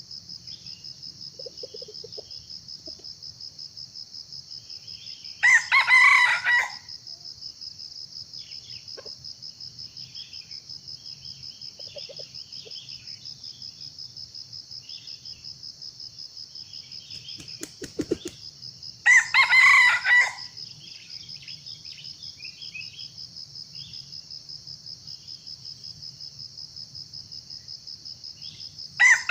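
Junglefowl crowing three times, each crow short (about a second) and coming roughly ten seconds apart, over a steady high-pitched insect buzz. A single sharp click comes between the second and third crows.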